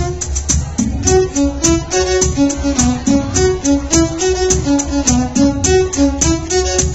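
Dance music with a steady beat and heavy bass, a violin-like string melody playing short repeated notes over it.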